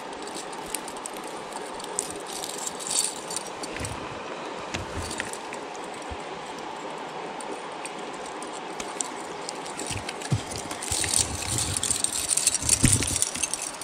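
Metal chain fish stringer jangling and clinking as a trout is clipped onto it, the rattling busier in the last few seconds, over the steady rush of the creek.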